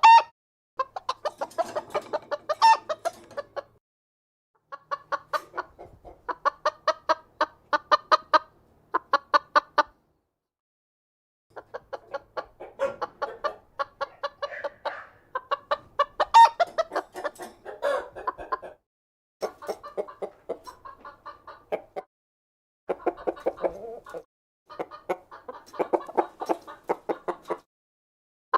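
Domestic hen clucking: quick runs of short clucks, several a second, in bouts of a few seconds broken by short silent gaps.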